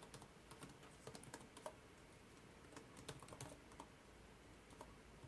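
Faint typing on a computer keyboard: scattered keystrokes in small irregular clusters with short pauses between them.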